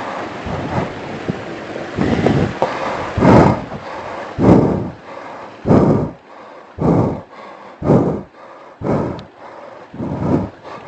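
Heavy breathing close to the microphone, about one breath a second, each breath a short rush of wind-like noise on the mic.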